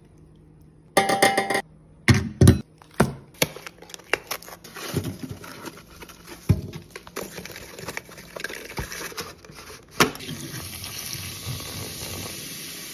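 A metal sink strainer and drain fittings clink, knock and rattle against a stainless-steel sink as they are handled, with one ringing clatter about a second in and a run of knocks and clicks after it. About ten seconds in, water starts running into the drain with a steady hiss.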